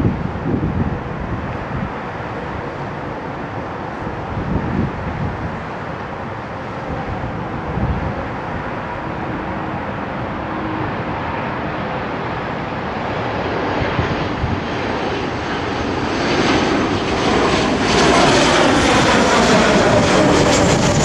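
Boeing 737 jet engines on approach with gear down, a steady jet rush that grows louder over the last several seconds as the airliner passes close overhead, with sweeping tones as it goes by.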